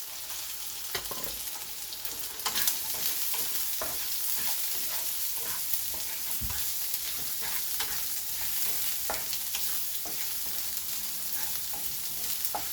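Diced chicken with ginger and garlic sizzling in hot oil in a pan, stirred with a utensil that clicks and scrapes against the pan. The sizzle gets a little louder about two and a half seconds in.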